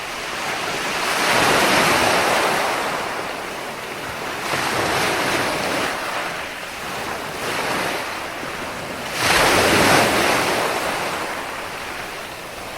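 Sea waves breaking on a shore in repeated surges of hiss, each swelling and fading over a couple of seconds; the loudest wave breaks in suddenly about nine seconds in.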